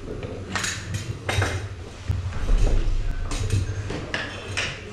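A rebreather harness and its fittings being handled: about six sharp clicks and clinks, with rubbing in between.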